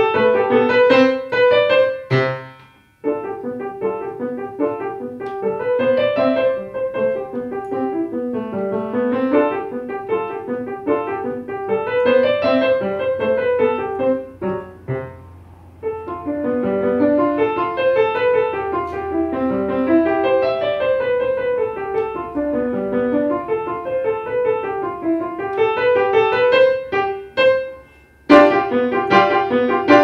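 Grand piano played solo: quick runs of notes that rise and fall in arcs, with brief pauses about three seconds in, midway through, and near the end.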